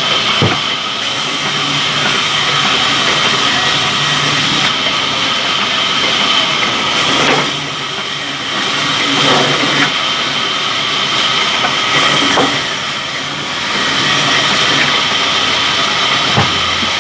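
Sawmill saw running and cutting wood: a loud, steady high whine over a noisy mechanical din, with a few sharp knocks and two brief drops in level partway through.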